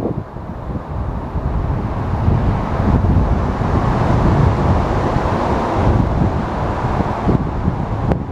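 Steady low rumble of passing vehicles, with wind buffeting the microphone in uneven gusts.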